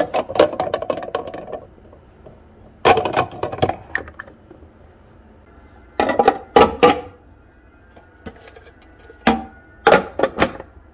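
Dishes and kitchen utensils clattering as they are handled, in four or five short bouts of sharp knocks a few seconds apart.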